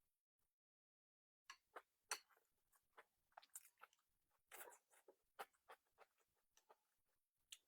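Quiet, close-up chewing and mouth sounds of someone eating: short, irregular wet smacks and clicks that begin after about a second and a half of silence.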